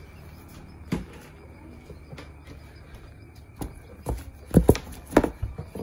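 A few sharp knocks and taps on cardboard boxes, sparse at first, then coming closer together and louder over the last two seconds, over a faint low hum.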